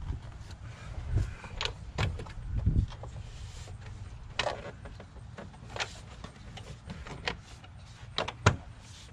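Scattered clicks and knocks of rubber and plastic as the air intake tube and its sensor connector are fitted back onto a 5.7 Hemi V8. There are a few dull thumps in the first three seconds and a sharp click near the end.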